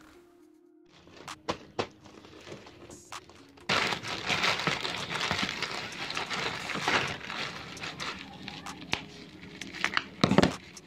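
Plastic parcel wrapping and bubble wrap crinkling and crackling as the package is handled and unwrapped by hand. It starts a few seconds in after a couple of sharp clicks, and there is a knock near the end.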